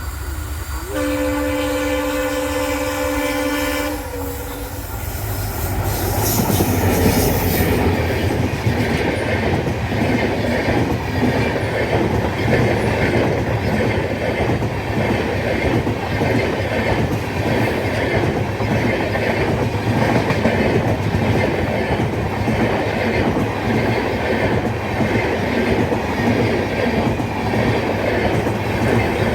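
WDP-4B diesel locomotive's air horn sounding one chord-like blast of about three seconds, about a second in. Then the train rolls past, its passenger coaches' wheels clattering over the rail joints in an even rhythm.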